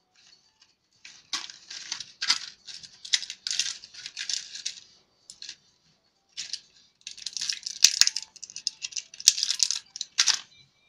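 Crinkling of a plastic blister pack handled in the fingers, in irregular bursts, and its foil backing tearing as small metal atomizer coil heads are pushed out, with two sharp clicks in the second half.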